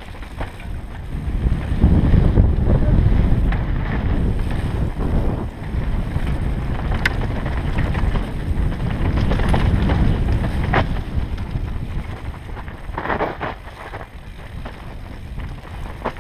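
Wind buffeting the microphone of a camera on a mountain bike ridden fast down a dirt trail, with the rumble of tyres over the ground and a few sharp clacks from the bike over bumps. The rumble is heaviest in the first half and eases later on.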